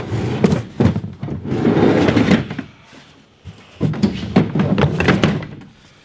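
Plastic DeWalt ToughSystem toolbox being dragged and shifted in a pickup bed, scraping with knocks and clunks in three spells of about a second each.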